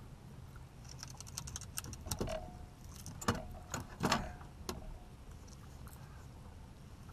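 A string of light clicks, rattles and knocks as a landing net and fishing gear are handled against the boat's metal rails, with two louder knocks near the middle.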